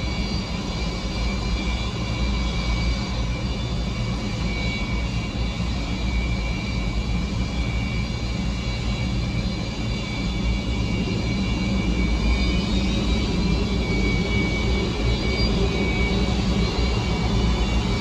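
Antonov An-124's four Progress D-18T turbofans running at taxi power: a steady whine with several tones over a low rumble, growing a little louder about two-thirds of the way in as the aircraft taxis closer.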